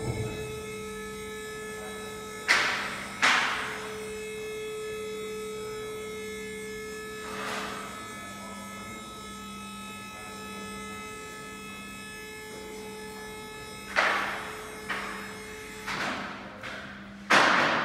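Hydraulic power unit of a two-post car stacker running steadily as it lifts the loaded platform, a constant electric-motor and pump hum that stops near the end. Sharp metallic clacks ring out at intervals, the loudest about two and a half seconds in, with a cluster near the end.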